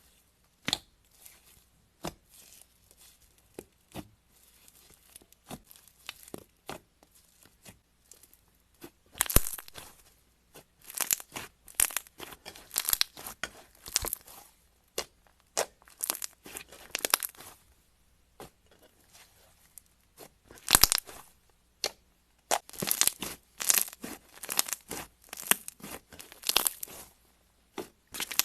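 Slime being squeezed and pressed by hand, giving irregular crackling pops. Sparse single pops at first, then dense crackling clusters from about nine seconds in.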